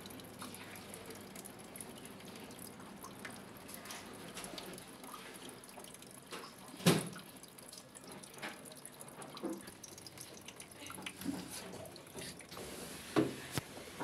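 Scattered water drips from a washing machine's detergent-dispenser housing, with small plastic knocks as it is handled; one sharper knock about halfway through and another near the end.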